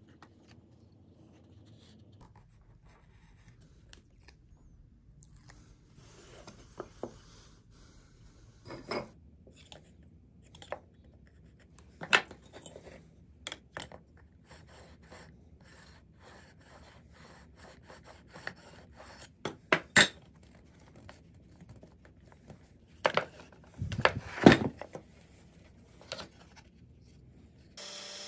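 Scattered handling sounds at a workbench: short scrapes, taps and clicks of tools and wood being moved and set down, the loudest a cluster near the end. Just before it ends, a handheld drill starts running steadily.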